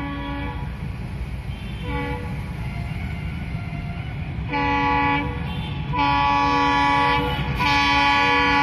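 Diesel locomotive horn sounding a series of blasts as the train approaches. One blast ends about half a second in and a short toot comes about two seconds in. Longer blasts follow at about four and a half seconds, about six seconds, and from about seven and a half seconds on, each louder than the last, over a low steady rumble.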